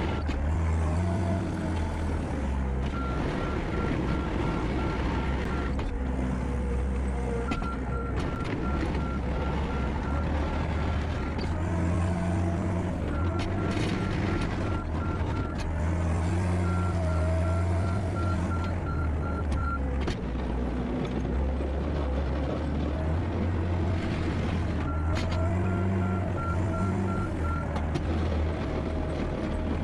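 John Deere skid steer's diesel engine running steadily under work, with its backup alarm beeping in several spells of a few seconds each as the machine reverses while moving snow.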